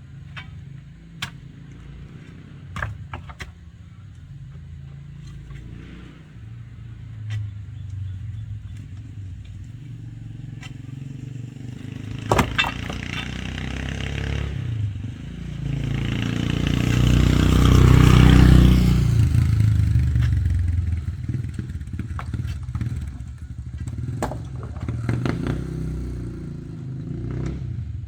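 A motor vehicle, likely a motorcycle, passes close by, its engine noise building to a peak around the middle and fading again. Underneath runs a steady low engine rumble, with scattered clicks and clatter from the work.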